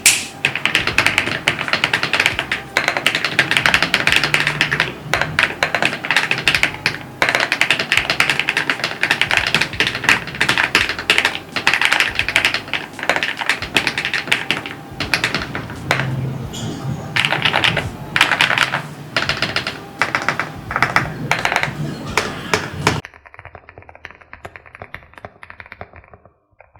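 Fast typing on a Stars80 mechanical keyboard fitted with keycaps, a dense, continuous run of keystroke clacks. About 23 seconds in it drops sharply quieter and duller.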